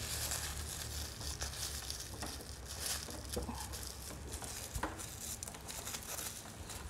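Quiet room tone with a steady low hum, a few faint soft taps and light rustling.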